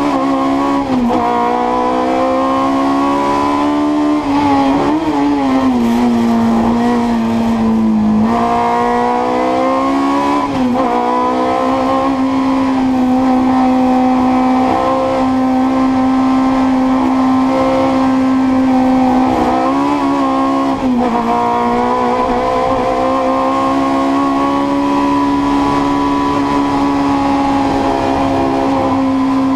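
Fiat 128 Coupé's four-cylinder engine at race revs, heard from inside the cabin: its pitch climbs through each gear and drops at the gear changes several times in the first twenty seconds, then holds high and steady.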